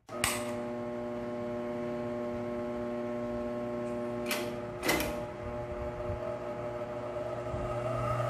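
Electric clutch motor of an industrial high-speed sewing machine switched on with a click, then running with a steady hum. Two more short clicks come about four and five seconds in.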